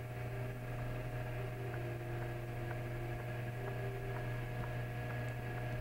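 Steady low electrical hum with faint, regular ticks about once a second.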